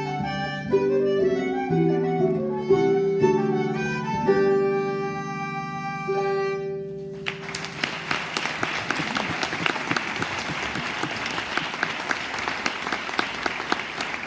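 An Irish traditional trio of harp, wooden-style transverse flute and concertina plays the closing notes of a tune and ends on a long held chord about halfway through. Audience applause follows and runs on.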